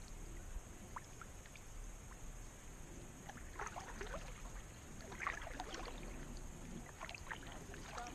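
Kayak paddle strokes on calm river water: faint splashes and drips every second or two as the blade dips and lifts.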